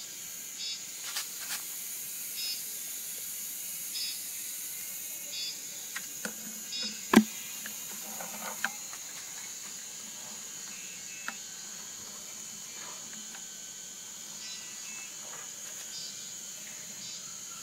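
Steady high-pitched insect chirring, with short chirps repeating every second or so. A sharp knock on the plastic bucket about seven seconds in, with a few lighter taps around it.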